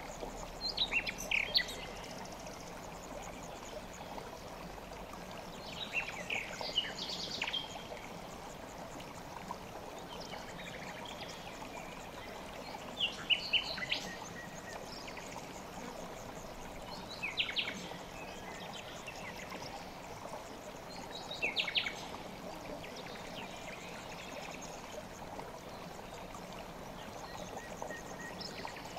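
River water flowing steadily, with a small bird singing short bursts of high chirping notes over it five times, every four to seven seconds.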